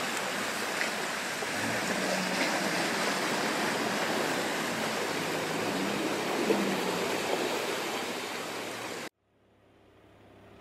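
Muddy water churning and splashing around a new Land Rover Defender's wheels as it wades through a flooded rut, with its engine running faintly underneath. The sound cuts off abruptly near the end, and a quieter vehicle engine fades in.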